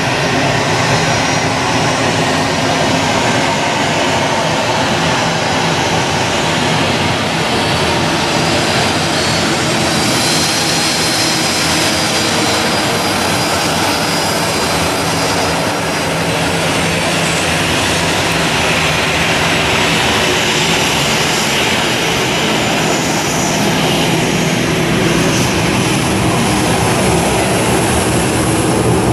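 Jet engines of a Boeing 737 running steadily on the ground, a continuous drone with a thin high-pitched whine over it.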